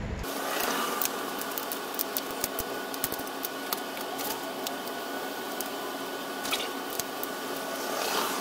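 Scattered light metallic clicks and taps of a small wrench working the rear chain adjuster on a dirt bike's swingarm, over a steady background hum.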